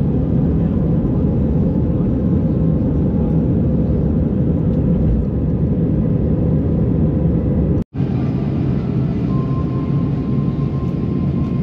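Jet airliner cabin noise: a steady low rumble of engines and rushing air. It cuts out for an instant a little before eight seconds in, then carries on with a faint steady tone added.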